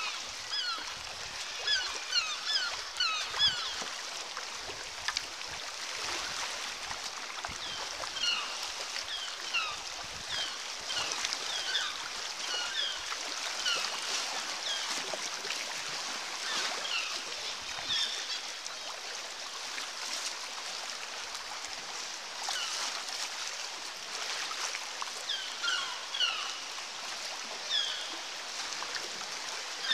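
Seabirds at a cliff colony calling, many short, high, downward-sliding calls overlapping, thickest in the first few seconds and again later on. Under them runs the wash and splash of sea water around the kayak and the rocks.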